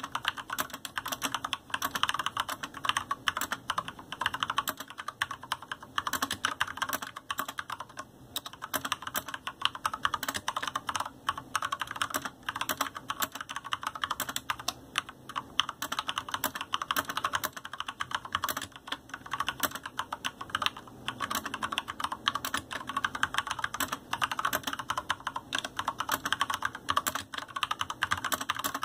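Fast continuous typing on a GANSS GS87-D mechanical keyboard with Cherry MX Red linear switches, a dense stream of key clacks with no pauses longer than a moment.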